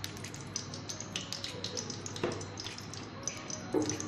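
Desi ghee melting in a hot kadhai, crackling lightly with many small scattered pops. Two louder taps, about two seconds in and near the end.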